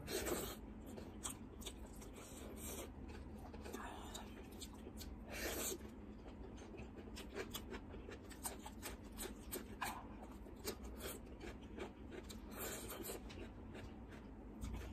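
A person eating with her hand close to the microphone: chewing with many small wet mouth clicks and smacks, and a few louder brief bursts, one right at the start, one about five and a half seconds in and one near the end.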